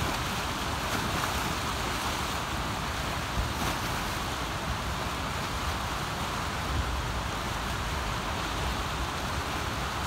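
Mississippi River in flood rushing through whitewater rapids below open dam flood gates: a steady, even rush of churning water, with an uneven low rumble of wind on the microphone underneath.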